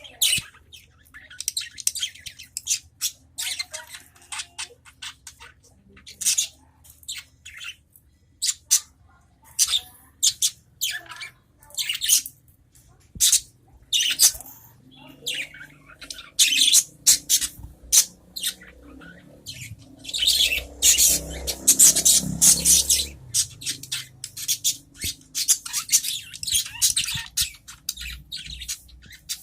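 Several adult budgerigars chattering and calling back and forth in quick, short chirps and squawks. The calls are densest about two-thirds of the way through.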